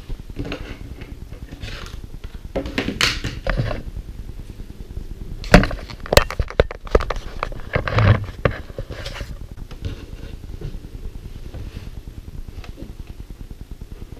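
Fabric rustling as it is gathered and moved, with a cluster of sharp knocks and clicks about five to eight seconds in, the loudest near the start of that cluster.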